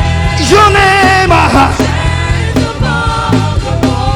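Gospel worship song: a singer holds and bends long sung notes over a band with a steady beat.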